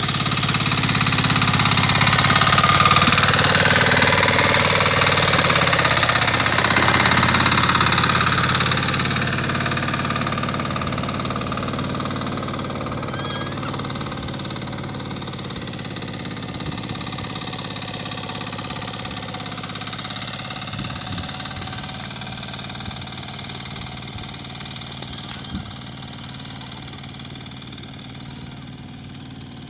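Mini power tiller's engine running steadily as it pulls a loaded trolley past. It is loudest a few seconds in, then fades gradually as the tiller drives away.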